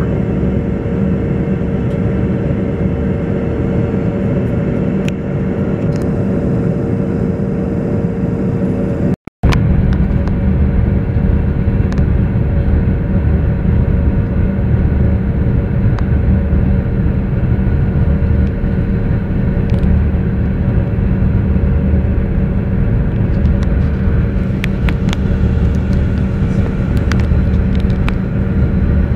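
Steady cabin noise inside a passenger jet on its landing approach: engine hum and airflow rumble. About nine seconds in the sound cuts out for a moment and comes back slightly louder, with more low rumble.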